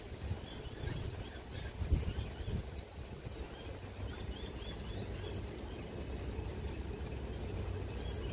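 Birds chirping: many short high calls repeated through the whole stretch, over a steady low rumble, with a few low thumps about two seconds in.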